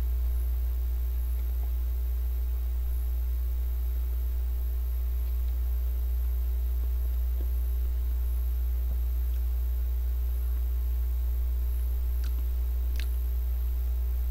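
A steady low hum, with a couple of faint clicks near the end.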